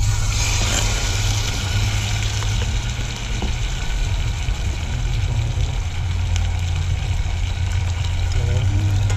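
Chicken pieces sizzling in a hot stainless steel pot, starting as they are tipped in, over a steady low rumble.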